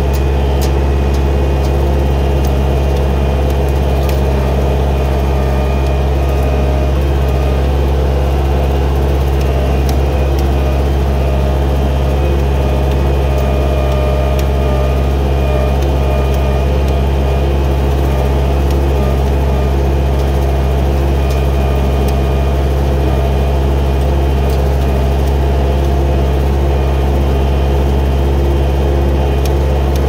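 Skid steer engine and brush cutter running steadily at one constant speed: a loud, even low drone with faint scattered ticks.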